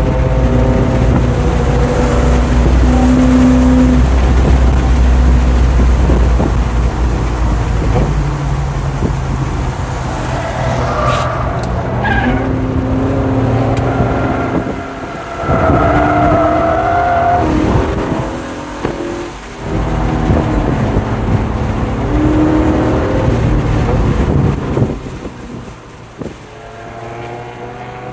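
Lincoln Mark VIII's 4.6-litre DOHC V8 heard from inside the car, running steadily at high revs for the first ten seconds or so. The revs then drop and vary through the corners. Tires squeal several times in the second half.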